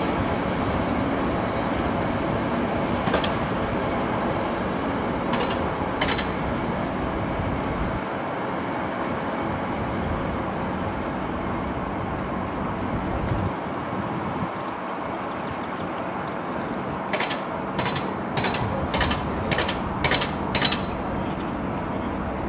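A train passing on the main line, with steady running noise and the wheels clicking over the track. A few single clicks come early, then a run of about seven clicks roughly half a second apart near the end.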